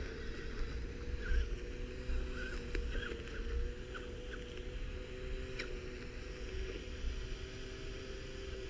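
RC crawler with a home-made spinning weed-cutter blade, its motor running with a steady whine that wavers slightly in pitch, and a few light ticks in the first few seconds.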